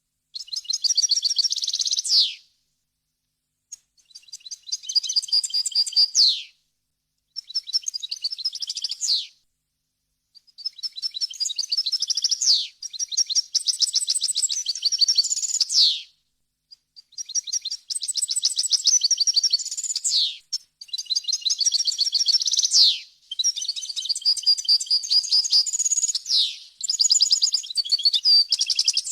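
European goldfinch singing: fast, high twittering song in phrases of two to five seconds separated by short pauses, many phrases ending in a quick downward slur.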